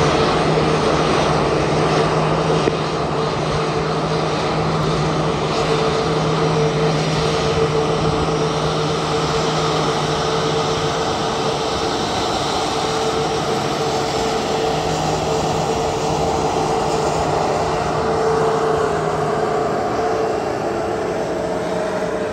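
Boeing 737 MAX 8's CFM LEAP-1B turbofan engines running at taxi thrust: a steady jet whine and hum. Near the end one tone slides slightly lower as the aircraft passes close by.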